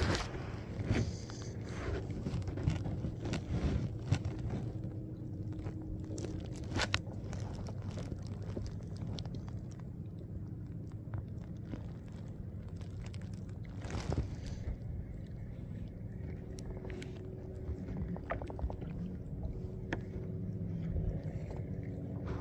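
Wind rumbling on the microphone while small waves slap and knock against a plastic sit-on-top kayak hull, with a couple of sharper knocks.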